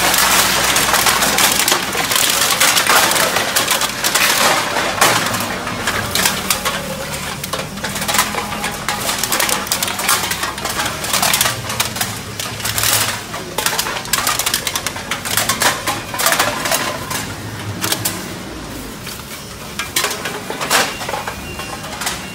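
Crushed aluminium cans being shaken out of plastic bags into a steel hopper, clattering and rattling against the metal in dense bursts, over a steady low hum of machinery.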